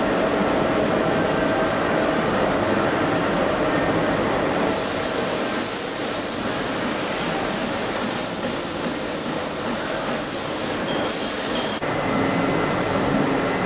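Steady machinery noise in a machine shop: a constant hum and hiss with faint steady tones, the hiss easing a little about five seconds in.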